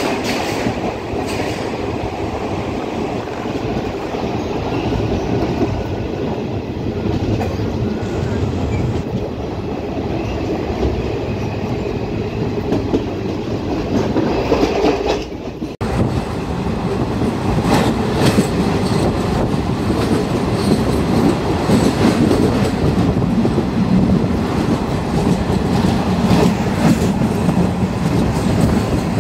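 Passenger train running on the rails, heard through an open coach window: a steady rumble with the clickety-clack of wheels over rail joints. About halfway the sound breaks off for a moment and comes back louder, with sharper, more frequent clatter.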